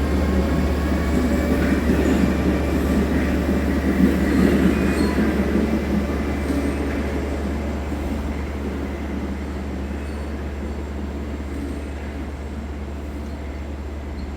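LIRR diesel push-pull train (EMD DE30AC locomotive with bi-level coaches) rolling away on departure, a steady low rumble with wheel and rail noise and faint wheel squeal early on, fading steadily as it recedes.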